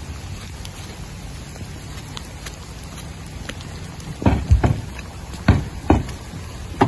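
Heavy rain falling steadily, with faint pattering drops. From about four seconds in, five dull thumps stand out above it.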